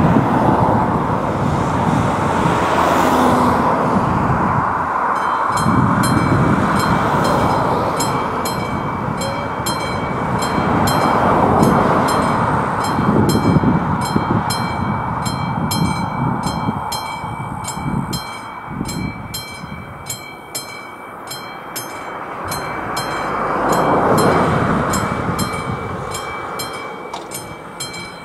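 Classic level-crossing warning bell starting about five seconds in and striking in a rapid, steady rhythm. Under it runs a loud, steady rushing noise with a low rumble.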